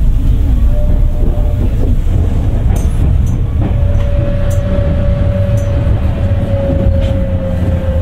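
Tokyu 9000 series electric train running, its Hitachi early-type GTO-VVVF inverter and traction motors over a heavy rumble, with scattered clicks. About three and a half seconds in, a steady whine from the drive comes in and slowly drops in pitch.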